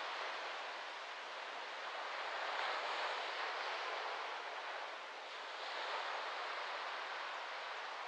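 Small waves lapping on a sandy beach, with wind rustling through coconut palm fronds: a steady hiss that swells twice, about two and a half seconds in and again near six seconds.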